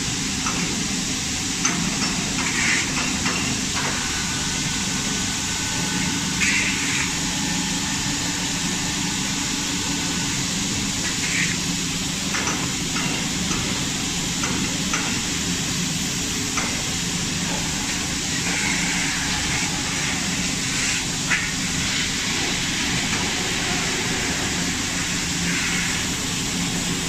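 Pneumatic jolt squeeze moulding machine being worked in green sand moulding: a steady hiss and hum with a few short knocks.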